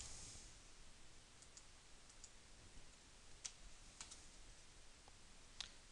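Near silence with about six faint, scattered clicks from a computer mouse and keyboard.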